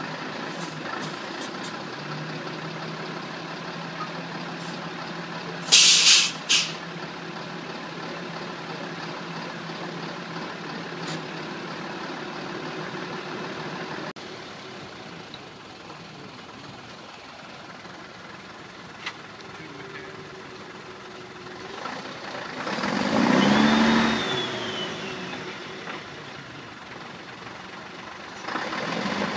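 Heavy army truck diesel engines running steadily, with two sharp air-brake hisses about six seconds in. Around twenty-three seconds in, an engine revs up hard and falls back, straining under load as the stuck truck is pulled out of the clay.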